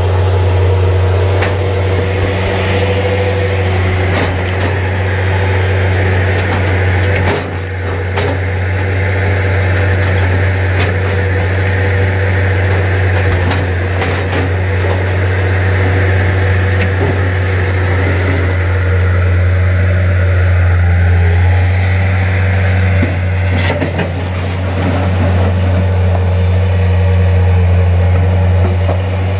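Bobcat skid-steer loader's engine running steadily under load, with a few sharp knocks and clatters of bricks breaking away from a brick-veneer wall and falling as the bucket pushes into it.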